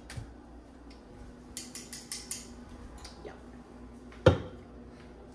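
Light clinks and taps of bottles and glasses being handled while shots are mixed, then one louder knock about four seconds in.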